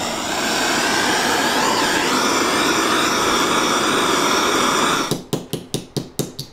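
Hand-held gas blowtorch flame hissing steadily while heating a small metal piece on a soldering block, cutting off about five seconds in. Then a small hammer taps rapidly, about six light strikes a second.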